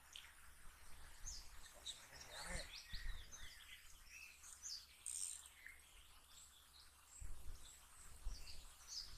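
Small birds chirping and singing, faint, many short high calls overlapping. A few low rumbles come through around the middle and again near the end.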